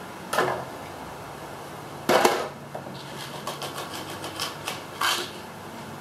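Small hardware being handled for fitting a door latch: a few sharp knocks and clatters, the loudest about two seconds in, with a quick run of light clicks between about three and five seconds in.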